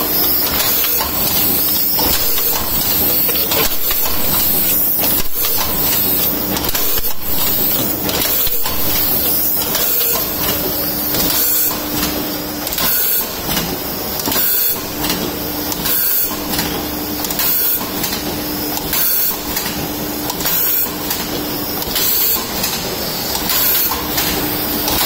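Automatic tube filling machine running: a steady clatter of repeated mechanical knocks from the indexing table and actuators, with air hissing throughout. A steady hum under it stops and restarts a few times.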